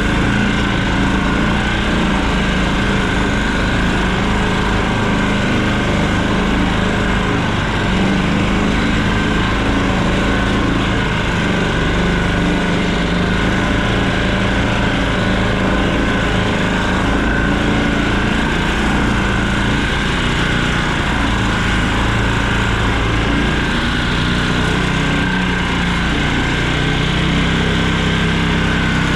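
An engine running steadily and loudly, its drone unbroken, with no change in speed.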